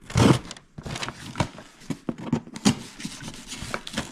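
A parcel being opened by hand: a loud rustling burst at the start, then a run of irregular scrapes and clicks as the packaging is pulled and rubbed.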